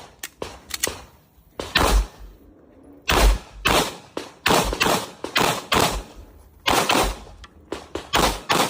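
Beretta 92 9 mm pistol fired in fast strings of shots, irregularly spaced with some in quick pairs, each crack with a short echoing tail.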